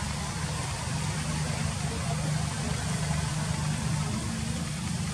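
A steady low engine hum, like a vehicle idling, with an even hiss over it.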